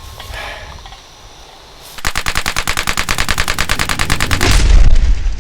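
A burst of rapid automatic gunfire, about a dozen shots a second for over two seconds, ending in a deep boom, the loudest sound here.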